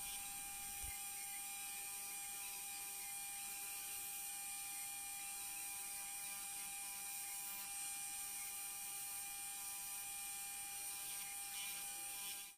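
Electric bench polishing wheel running steadily with a high, even whine and hiss as a steel machete blade is polished against it.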